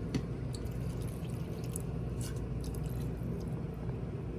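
Milk being poured into a blender jar over chopped coconut, with a few light drips and clicks, over a steady low hum.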